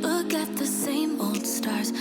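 Background music: a slow pop ballad with sustained chords and a sung melody line.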